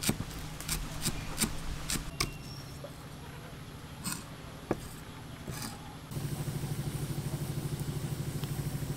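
Cleaver chopping green onions on a thick wooden chopping block: sharp knocks a few times a second that stop about two seconds in, then a few scattered knocks. About six seconds in the sound switches abruptly to a steady, fast-pulsing low hum.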